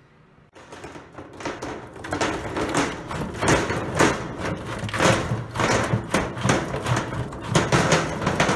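Eastern oysters in the shell tumbling out of a plastic bucket into a stainless steel sink: a dense clatter of shells knocking on each other and on the metal. It starts about half a second in and grows louder after about two seconds.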